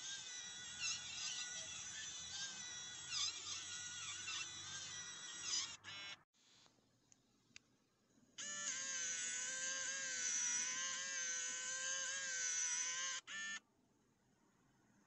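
SwitchBot Blind Tilt motor whirring as it turns the blind's slats. It runs for about six seconds and stops, then after a few quiet seconds it runs again for about five seconds with a steadier whine, and each run ends with a brief clunk.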